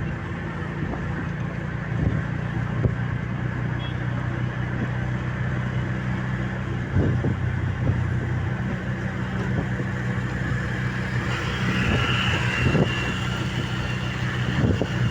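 A road vehicle's engine running steadily with tyre and road noise, with a few short thumps and a brief higher tone about twelve seconds in.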